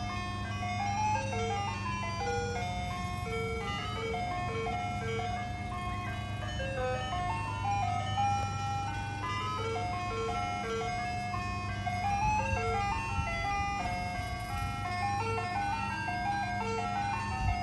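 Soft-serve ice cream truck playing its jingle, a simple tinkling melody of short repeating notes from its loudspeaker, over a steady low hum.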